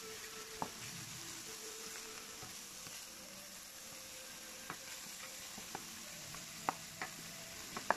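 Ground meat and chopped onion sizzling in a nonstick frying pan as they are stirred. The spoon clicks against the pan about six times, most sharply near the end.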